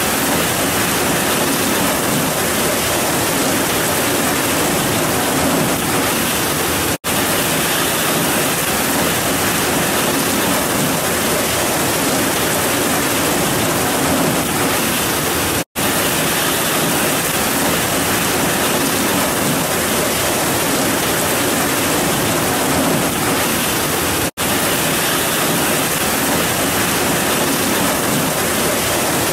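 Heavy rain pouring down in a steady, dense hiss. The sound cuts out for an instant three times, about nine seconds apart.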